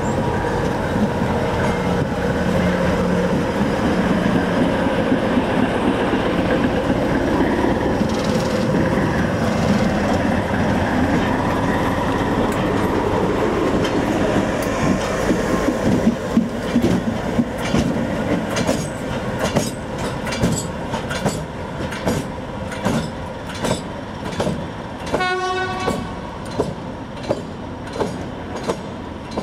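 Short train of two Network Rail GLV vans and a Class 73 locomotive passing close by with a steady rumble and clatter. From about halfway it turns into a regular bang, about one and a half times a second, as the rear van rolls away on a wheel with a large flat. A train horn sounds briefly a few seconds before the end.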